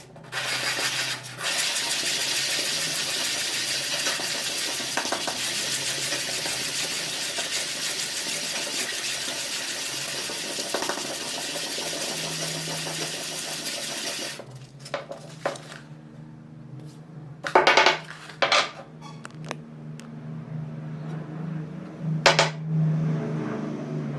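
Steel meat grinder blade being sharpened against an abrasive: a steady scratchy grinding for about fourteen seconds, then it stops and gives way to scattered metallic clinks and scrapes.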